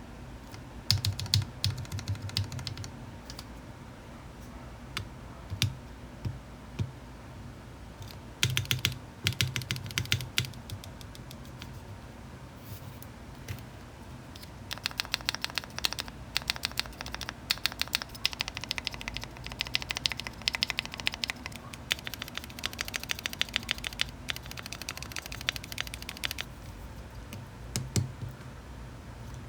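Keys on a KBD67 Lite mechanical keyboard with stock stabilizers pressed over and over to test the stabilizers: scattered short runs of clacks, then long runs of rapid presses in the second half.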